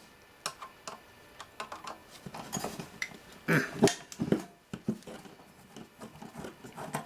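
Scattered light clicks and metallic clinks of tools and chassis parts being handled while an old avionics receiver is dismantled on a bench, with a louder clatter about halfway through.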